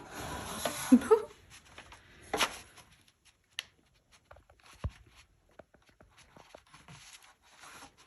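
Handling noises from rubber edge trim being worked onto the intake's metal heat shield: a rustling burst in the first second, another rustle, then scattered small clicks and one dull knock about five seconds in.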